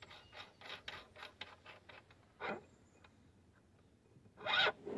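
Quick, evenly spaced scraping and rubbing, about six strokes a second for the first two seconds, as the counterweight shaft extension is threaded by hand into an iOptron AZ Mount Pro. A single short sound follows, then a louder one near the end.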